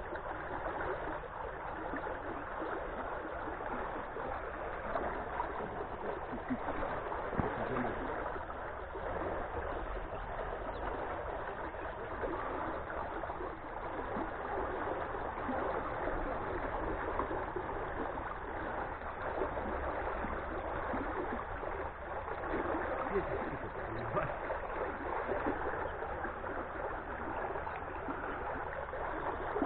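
Steady rushing and gurgling of water pouring out of a submerged culvert pipe into a flooded creek.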